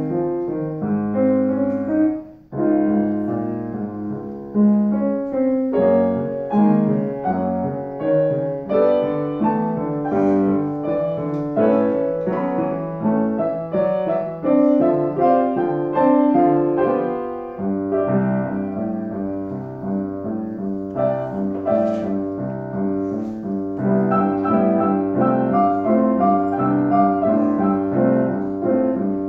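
Piano duet: two children playing together at one piano, a steady stream of melody notes over a lower accompaniment. The playing stops for a moment about two seconds in, and a fuller bass part comes in a little past halfway.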